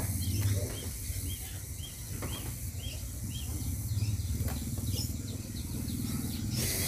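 Amaranth stems snipped with scissors and leaves rustling as they are laid on a woven tray, with a few faint sharp ticks. A bird repeats a short rising-and-falling chirp about twice a second, stopping about two thirds of the way through, over a low distant engine hum.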